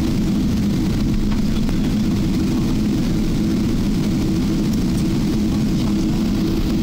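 Steady low drone of an Airbus A380's cabin with its engines idling as it taxis after landing, heard from a passenger seat.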